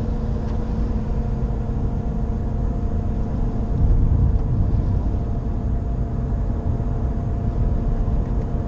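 Cabin noise of a Nissan Qashqai J11 at highway speed: road rumble with a steady, piercing drone like a worn wheel bearing, which rises and falls with road speed and keeps on unchanged with the gearbox in neutral; the owner cannot say what causes it. A lower engine tone fades out about three and a half seconds in as the car is put into neutral and the revs drop to idle.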